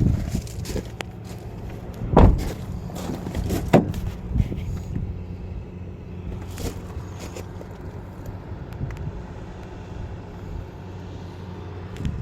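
A few sharp thumps and knocks, the loudest about two seconds in and another near four seconds, then a few lighter ones, over a steady low hum.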